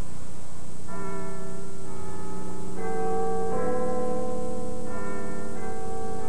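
Church bells ringing, several overlapping notes, starting about a second in.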